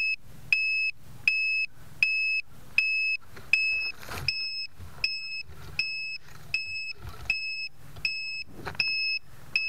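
A crashed FPV drone's lost-model beeper sounding short, high, even beeps, about four every three seconds. From a few seconds in there is rustling and knocking as the drone is handled among leaves.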